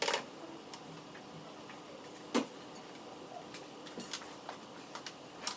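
Handmade mahjong tiles clicking against each other and the wooden table as players push and arrange them: a handful of light, separate clicks, the sharpest about two and a half seconds in.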